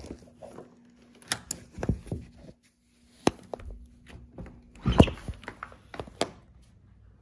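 Sharp clicks and knocks from a door's lock and lever handle being worked and the door opened, along with bumps from a handheld phone being jostled. The loudest knock comes about five seconds in, over a faint steady hum.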